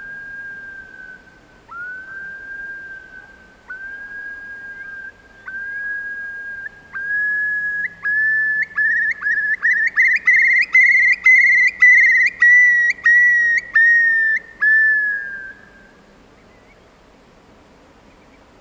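Eurasian curlew's bubbling song: long whistled notes, spaced out at first, that come ever faster and rise in pitch into a bubbling trill. The song ends with a last slurred note about 16 seconds in.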